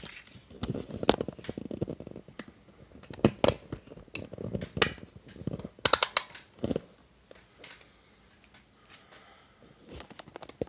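Handling noise from the recording camera being moved and set back in place: scattered clicks, knocks and rustles. They are dense for the first several seconds and thin out to a few faint ticks near the end.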